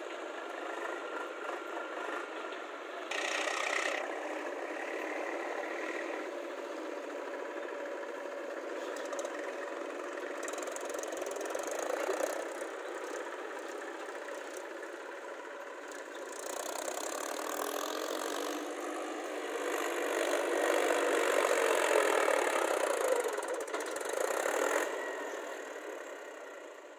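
Diesel tractor engines running under load, louder for several seconds past the middle as a tractor climbs a steep dirt ramp.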